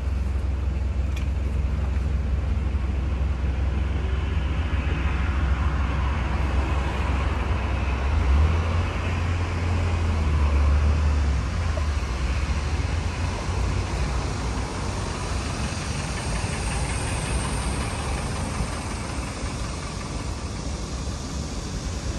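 Road traffic with a heavy engine rumbling low for the first half, as a green city bus pulls up to the stop. A brief high hiss comes about sixteen seconds in.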